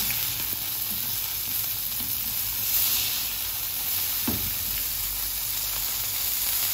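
Beef burger patties sizzling steadily on a hot round flat griddle as they are flipped with a metal spatula. The sizzle swells briefly about three seconds in, and the spatula knocks once against the pan just after four seconds.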